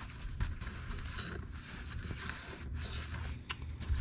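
Shop towel rubbing and wiping the inside of a front differential case half, a soft scrubbing rustle with a few small clicks, over a low steady hum.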